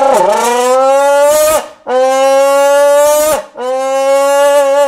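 A man's voice shouted through the mouth of a dented energy-drink can, imitating a car engine revving through the gears. It comes as three long, buzzy held notes, each climbing a little and dropping off at the end like a gear change.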